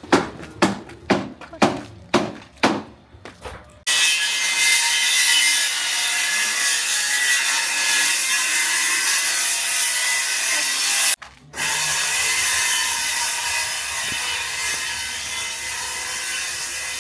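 Rhythmic hand-sawing strokes, about two a second, for the first few seconds. Then a power cutting tool starts and runs loud with a high whine, cutting out briefly about 11 seconds in before running on.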